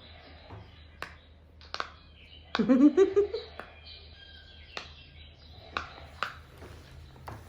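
Silicone fidget toys being pressed and popped: sharp, separate clicks about a second apart, six or seven in all. A voice briefly calls out with a rising-and-falling pitch between two and a half and three and a half seconds in.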